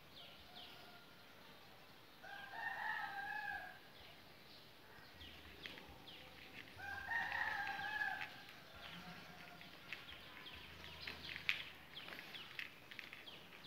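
A rooster crowing twice, each crow about a second and a half long, with a run of short, sharp ticks near the end.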